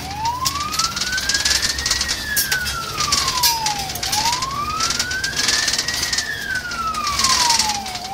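Scania fire tender's siren in a slow wail, heard from inside the cab: the tone rises for about two seconds and falls for about two, twice over. Underneath are the truck's engine and road noise.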